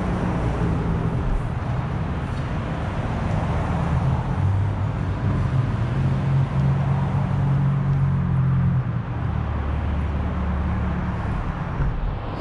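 Street traffic: vehicle engines running and passing, a steady low engine hum that shifts in pitch a few times.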